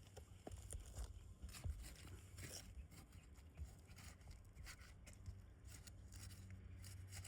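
Faint irregular scraping and clicking of a flat pry bar being worked under asphalt roof shingles to break their seal and loosen them.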